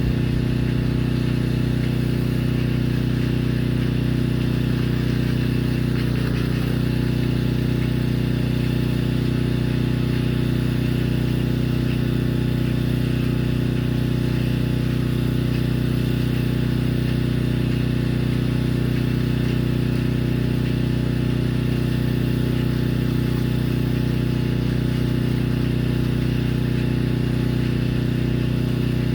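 Pressure washer's engine running steadily at constant speed, a low even drone that does not change.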